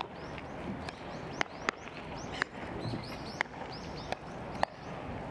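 A series of sharp pops from baseballs smacking into leather gloves, at irregular intervals, over birds chirping.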